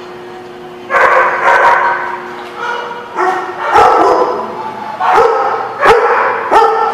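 Dogs barking and yipping in repeated bouts, starting about a second in, with a few sharp single barks near the end.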